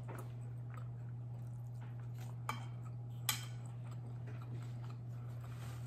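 A fork clinking and scraping against a plate of food, with a few light clicks and two sharper ones about two and a half and three seconds in, over a steady low hum.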